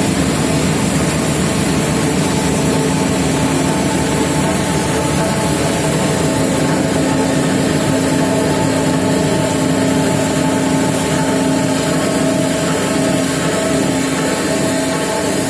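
External pin milling machine with a 750 mm diameter cutter running: a steady, loud machine hum with several held tones.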